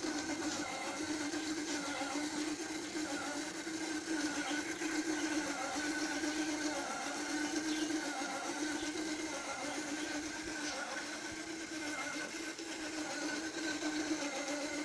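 Electric motor of a home-built battery-powered children's tricycle running as it drives along: a steady whine that wavers slowly up and down in pitch.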